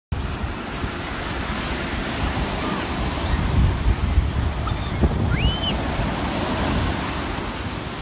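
Ocean surf breaking and washing up the beach in a steady rush, with wind buffeting the microphone. About five seconds in, a short high-pitched call rises and falls once.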